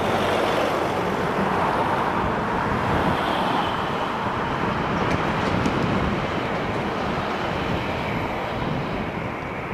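A steady roar of engine noise, easing slightly toward the end.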